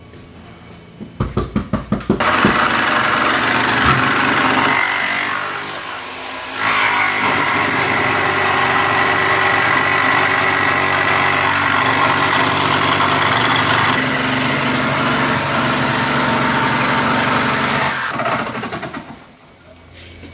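Handheld power saw cutting an insulated cold-room wall panel along a guide: a few quick stuttering starts, then a continuous cut with a steady high whine. There is a brief dip about five seconds in, and the saw winds down about eighteen seconds in.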